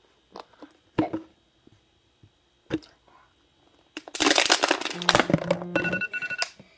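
Thin plastic water bottles crackling and clicking as they are squeezed while being drunk from, with a loud stretch of crunching about four seconds in. From about five seconds, steady electronic tones at a few fixed pitches start sounding.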